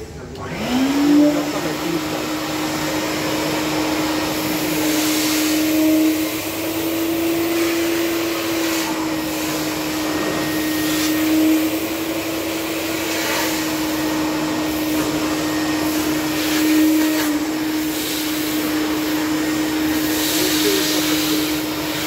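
Drum-type wet-and-dry vacuum cleaner switched on: the motor spins up with a rising whine in about a second, then runs steadily with a constant hum and air rushing through the hose. The rush swells now and then as the nozzle is moved.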